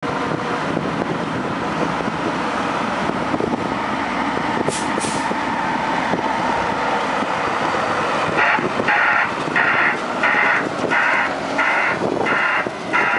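Volvo A25D articulated dump truck's diesel engine running steadily, with two short air hisses about five seconds in. About eight seconds in its reversing alarm starts, beeping evenly about three times every two seconds.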